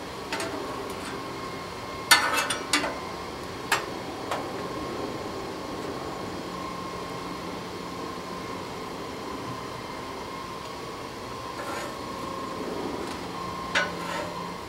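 A few short scrapes and taps of a metal spatula on a flat-top griddle, over a steady background hum: a cluster about two seconds in, a couple of single clicks soon after, and another near the end.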